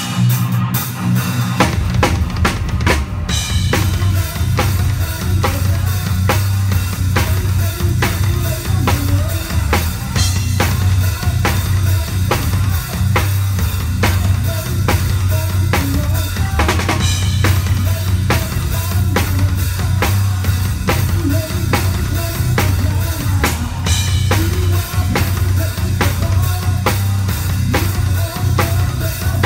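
PDP drum kit with two bass drums played in a steady, driving beat, bass drums, snare and cymbals struck in a dense even rhythm over a sustained low bass sound from the band.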